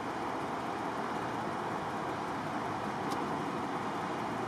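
Steady rush of highway traffic, tyres on the pavement, without a single vehicle standing out.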